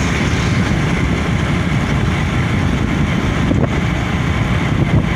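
Steady low rumble of wind buffeting the microphone, mixed with vehicle engine and road noise, recorded from a moving vehicle.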